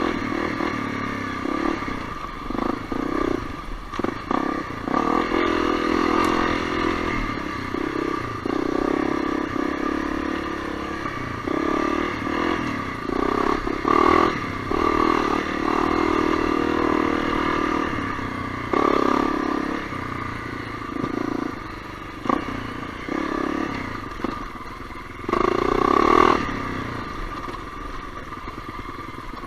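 Honda CRF250L's single-cylinder four-stroke engine running on a dirt trail, the throttle opening and closing so the engine note rises and falls again and again, with a few knocks along the way.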